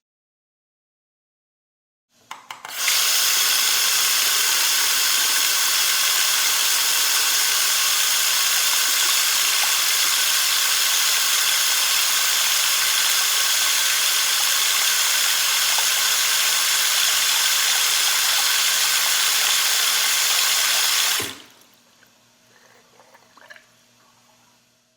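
Water tap turned on with a brief sputter about two seconds in, then a strong, steady stream of running water that cuts off abruptly near the end, leaving a few faint drips.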